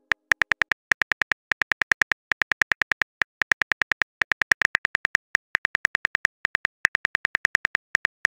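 Smartphone keyboard key-tap clicks from a texting animation as a message is typed out: a rapid run of short clicks, about six a second, with brief pauses between words.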